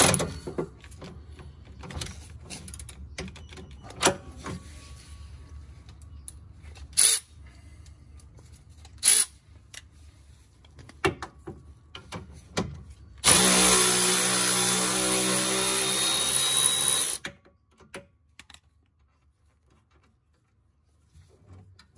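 Milwaukee cordless electric ratchet running for about four seconds, spinning a 17 mm nut off a sway bar end link. Before it come scattered light metallic clicks and knocks of tools on the fittings.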